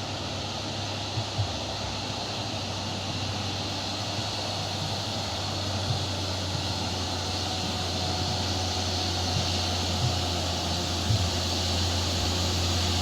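Tour bus's diesel engine labouring up a steep climb, a low drone that grows slowly louder as the bus draws near, with a few light knocks.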